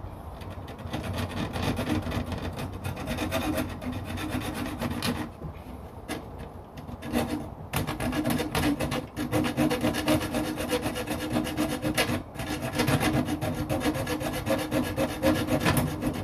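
Small hacksaw cutting through the metal grill grate of a UCO Flatpack fire pit: quick back-and-forth rasping strokes with a metallic ring, easing off briefly a couple of times.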